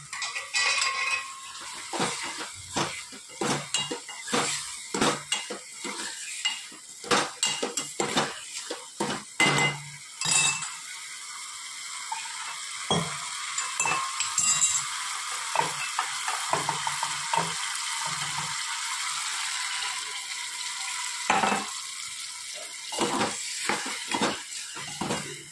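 Steel spoon stirring gathiya into tomato gravy in a small metal pot, scraping and clinking against the pot's sides in quick irregular knocks. Through the middle stretch the knocking stops and the gravy sizzles in a steady hiss on the gas flame.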